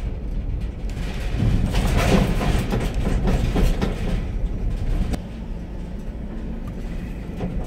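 Van driving slowly over a rough, potholed yard: a low engine and road rumble, with a few seconds of rattling and clattering from about a second and a half in until about five seconds in.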